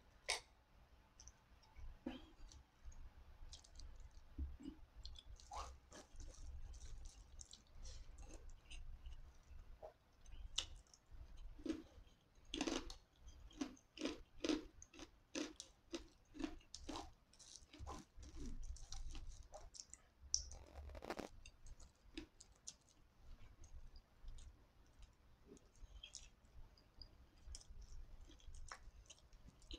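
Quiet, close-miked chewing, with many short, wet mouth clicks and lip smacks; a mouthful of rice is taken by hand near the end.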